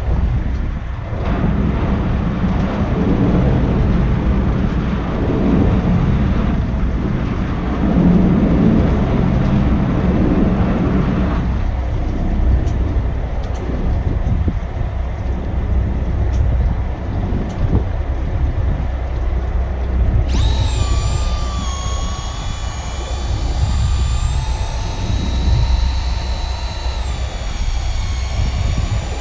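Steady low rumble of wind on the microphone and the boat at sea. About two-thirds of the way through, a high whine made of several steady tones starts suddenly and runs on beneath the rumble.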